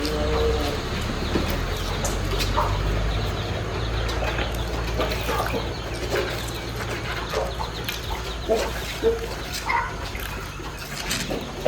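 Aseel rooster clucking and stirring while being handled, with short scattered rustles and clicks over a low steady rumble.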